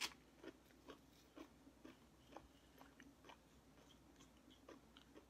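A person chewing food close to the microphone: soft, quiet mouth clicks and chewing ticks, a few each second, with one sharper click right at the start.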